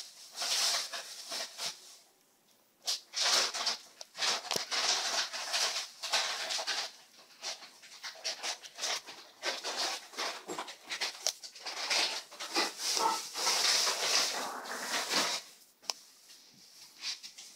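A domestic cat making close-up animal noises right by the microphone: rough, breathy sounds that come and go and stop shortly before the end.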